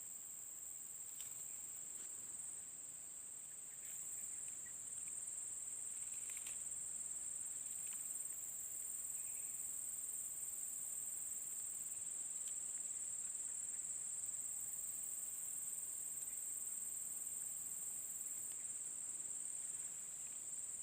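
Steady, high-pitched chorus of insects, with a few faint clicks and rustles now and then.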